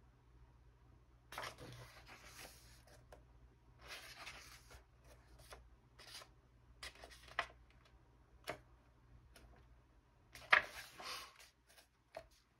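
Pages of a large softcover book being turned by hand: several short papery swishes and slides, with a few light taps, the loudest turn near the end.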